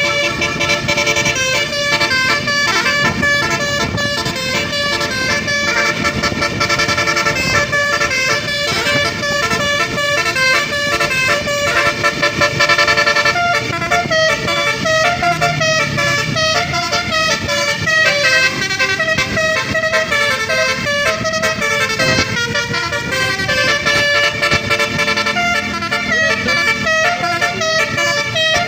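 Indonesian bus "telolet" horn: a set of musical air horns playing a quick tune of stepping notes over and over, without a break. A lower melody line joins in about halfway through.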